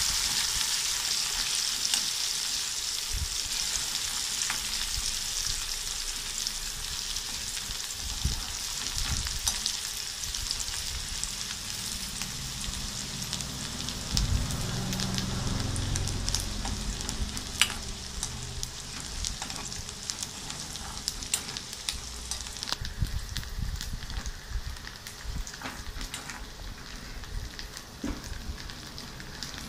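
Salt-cured chili pieces frying in oil in an aluminium pan, a steady sizzle that slowly dies down. Occasional clicks and scrapes come from the metal spoon stirring against the pan.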